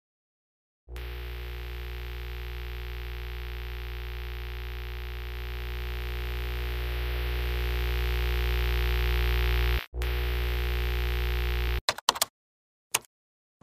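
Synthesized horror drone: a deep, steady hum with layered tones that starts suddenly, swells louder over several seconds and drops out briefly. It then cuts off into a few short, sharp glitchy stutters.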